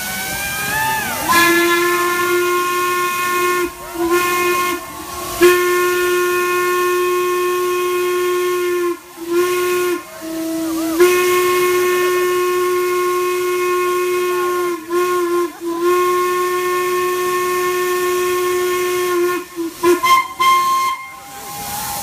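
A steam whistle blowing one steady note in long blasts, with short breaks between them and a few short toots near the end, over the hiss of escaping steam.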